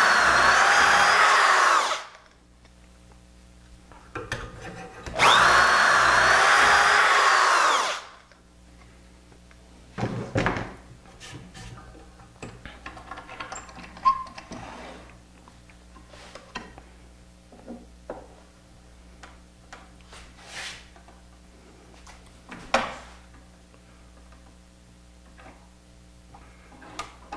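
Corded electric drill boring two dowel holes into a wooden frame piece through a doweling jig, two runs of about three seconds each. After that come a few small clicks and knocks as the metal jig is handled and moved along the workpiece.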